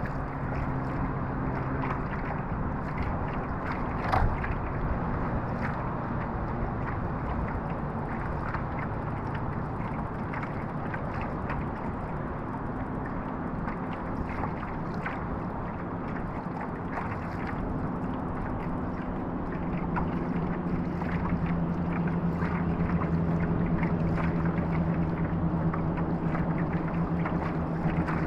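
Hobie Lynx kayak under way on a lake: water washing steadily along the hull, with a low hum underneath that gets louder about two-thirds of the way through. A single sharp knock about four seconds in.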